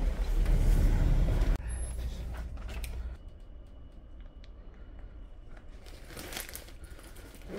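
A low rumble that stops abruptly about a second and a half in, then quiet rustling and small clicks of plastic toiletry bottles and a plastic basket being handled while a backpack is packed, with a louder rustle near the end.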